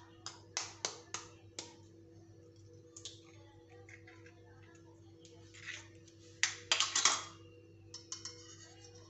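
A raw egg tapped sharply against the rim of a ceramic bowl about five times in quick succession and cracked open, followed by a few scattered clicks and a louder burst of clatter near the end. A steady low hum runs underneath.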